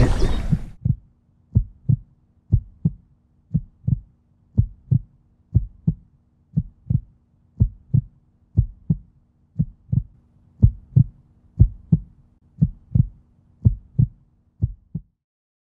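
Heartbeat sound effect: paired low thumps, about one beat a second, over a faint steady hum. Water splashing dies away in the first second, and the beat stops suddenly near the end.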